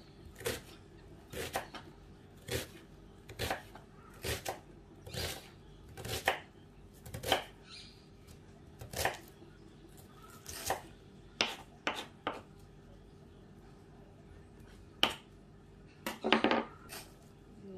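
Kitchen knife chopping an onion on a wooden cutting board: irregular knife strikes, one or two a second, that stop about two-thirds of the way through. Near the end comes a single sharp knock, then a short, louder clatter.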